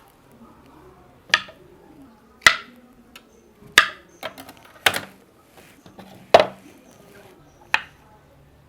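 Kitchen knife chopping mushrooms into large quarters on a cutting board: six sharp chops, about one every second and a quarter, with a few lighter taps between them.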